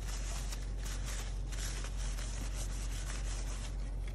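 Hands rubbing and scraping against a mechanical keyboard's PCB as it is handled, in many short scratchy strokes, over a steady low hum.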